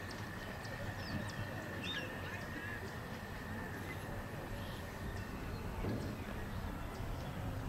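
Outdoor ambience of small birds chirping intermittently over a low, uneven rumble of open-air noise, with a steady high tone that stops a little under three seconds in.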